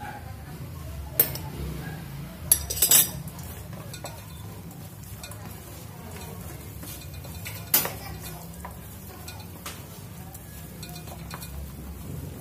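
Hands mixing flour into raw pork chops in a stainless steel bowl: rubbing and squishing, with a few sharp metallic clinks against the bowl, a cluster of the loudest about three seconds in and another near eight seconds.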